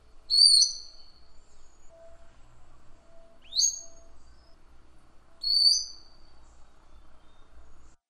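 Long-tailed broadbill calling: three loud, sharp whistles about two and a half seconds apart, each sweeping steeply up and then held briefly.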